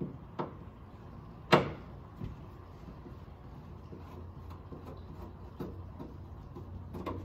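Scattered clicks and knocks of hand-tool work on the Bronco tailgate's inner panel as its last Phillips screws are taken out; one sharp knock about one and a half seconds in is the loudest, with a few lighter clicks before and after, over a low steady hum.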